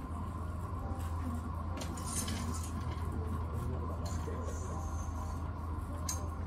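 Quiet café room tone: a steady low hum with a few small clicks and a brief rustle about two seconds in.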